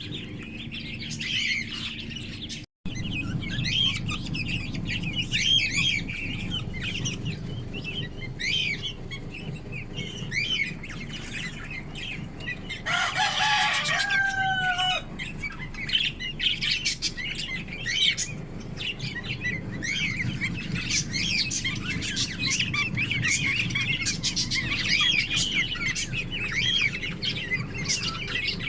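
A flock of small pet parrots chirping continuously in quick, overlapping calls. About 13 seconds in, one longer call lasts about two seconds.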